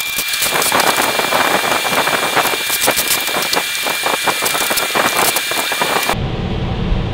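Sped-up time-lapse audio of tool work removing a pickup's grille and headlight surrounds: a dense, fast clatter of clicks and rattles over a steady high whine. It cuts off suddenly about six seconds in, leaving a low steady shop hum.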